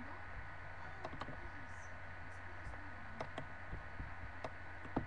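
Sparse typing on a computer keyboard: a few separate keystroke clicks spread irregularly over about five seconds, over a steady low hum.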